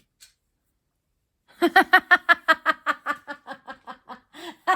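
A woman laughing: a quick run of short 'ha' pulses, about six a second, starting about a second and a half in and carrying on.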